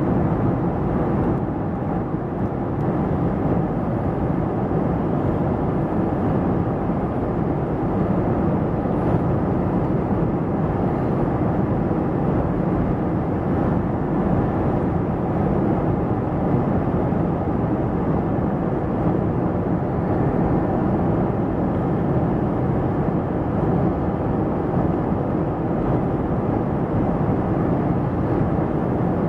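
Steady cabin noise inside a Boeing 737 in flight: the even rush of airflow and the hum of the jet engines, deep and unchanging.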